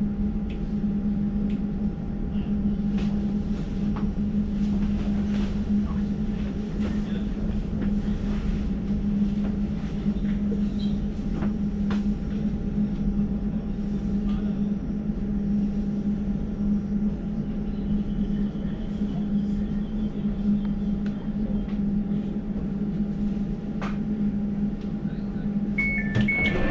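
Elizabeth line Class 345 train standing at a station platform, its equipment giving a steady low hum with a few faint clicks. Near the end, door-closing warning beeps start.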